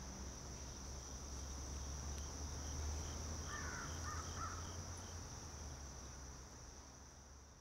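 Nature ambience: a steady high insect drone over a low hum, with a bird calling three times about halfway through. It all fades out near the end.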